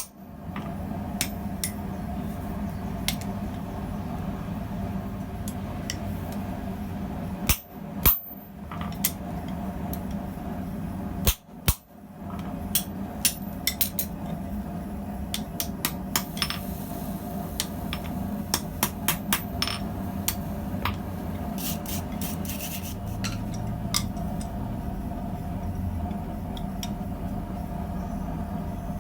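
Blacksmith's hammer striking steel on the anvil while forging tongs: a few heavy blows, then a run of lighter, irregular taps, over a steady background hum.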